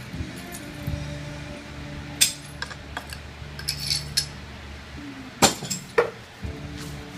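Broken ceramic tile pieces clinking and scraping as they are picked at and moved by hand on a tile floor, with scattered sharp clicks, the loudest about five and a half seconds and six seconds in.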